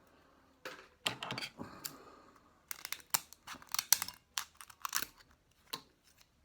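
Scissors clicking and snipping as they work at an oyster shell to pry it open, with some crinkling. The clicks come irregularly, a few at a time, from about a second in until near the end.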